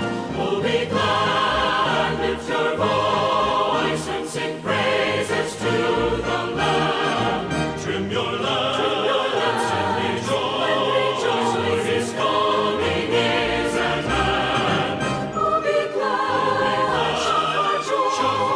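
Recorded Christian choral music: a choir singing with instrumental accompaniment.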